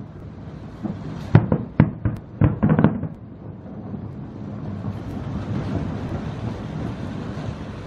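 Fireworks shells bursting: a rapid string of sharp bangs between about one and three seconds in, followed by a steady low rumble.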